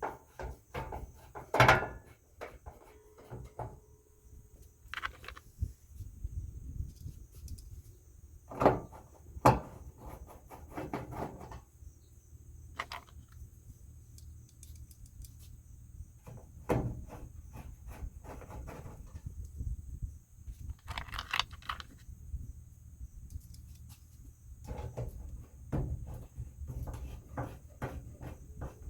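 Intermittent clicks, knocks and light rattles of hand tools and hardware being handled during work on the truck, with a few sharper knocks standing out about two seconds and nine seconds in.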